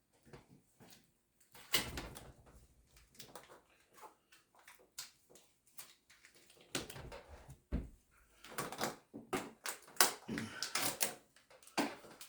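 Irregular handling noises from unpacking an appliance: rustles, clicks and knocks, with a low thud about two seconds in and another before eight seconds, and a cluster of sharper knocks later on.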